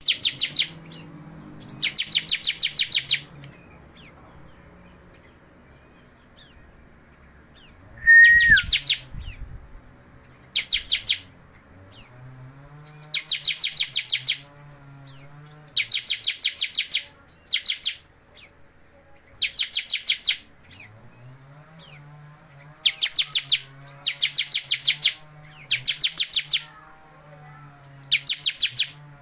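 Bar-winged prinia (ciblek) singing in about ten short bouts, each a rapid run of high-pitched chirps lasting about a second, while the bird is in moult. A short whistle and a thump sound about eight seconds in.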